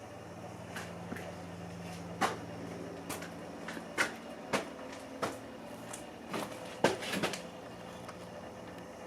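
A series of about ten irregular knocks and clunks, spaced unevenly over several seconds, over a steady low hum.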